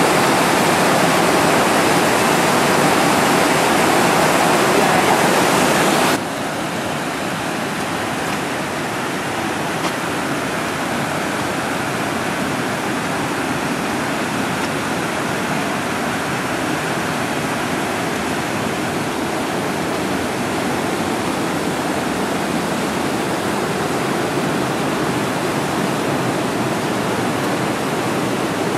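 Rushing creek water tumbling over rocks: a steady whitewater rush, which drops suddenly to a lower level about six seconds in.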